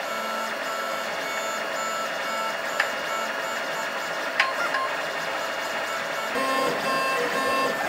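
FDM 3D printer running a print, its stepper motors whining in short pitched tones that keep changing note as the print head moves back and forth. There are two small clicks partway through.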